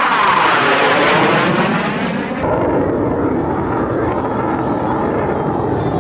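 Mirage jet fighter flying past, its engine noise sweeping downward in pitch over the first two seconds as it passes, then settling into a steady rumble as it draws away.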